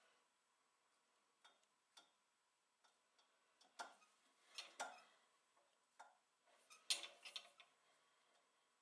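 Faint, irregular clicks and light metallic knocks from a four-jaw chuck on a metal lathe being turned by hand during centering with a dial test indicator. The loudest cluster comes about seven seconds in.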